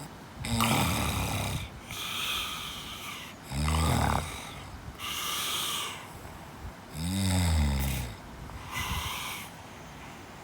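Snoring: a run of long breaths, each a second or so, with two louder, deep snores about four and seven seconds in whose pitch drops as they go.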